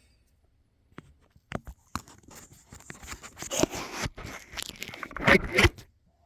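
Close-up handling noises as something is rigged up by hand: a few sharp clicks, then scraping and crinkling that builds to its loudest bursts just past five seconds and stops shortly before the end.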